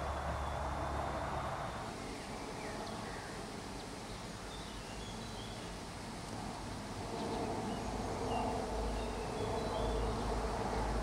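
Outdoor ambience: a steady buzz, with faint short chirps of small birds scattered through it. A low rumble builds over the last few seconds.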